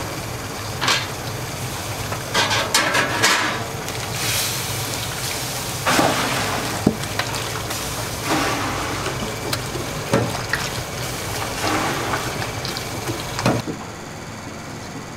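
Restaurant kitchen cooking noise: repeated hissing, splashing bursts of liquid and a few sharp metal clinks over a steady low hum.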